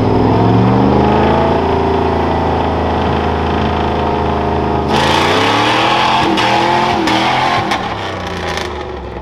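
Pickup truck engine revving hard as the truck launches from a standstill on a dirt course, pitch climbing, held, then climbing again about five seconds in. From then on a hiss with scattered ticks of tyres throwing dirt runs under the engine.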